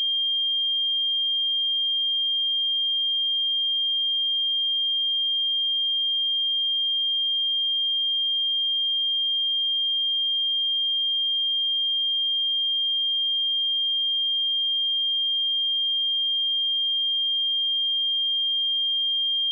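A pure 3204 Hz sine-wave test tone, held steady at one high pitch and constant loudness.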